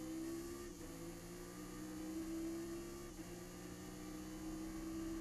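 Chevrolet Nova race car's V8 engine at full throttle, heard from inside the cockpit as the car accelerates hard, with two upshifts, about a second in and about three seconds in.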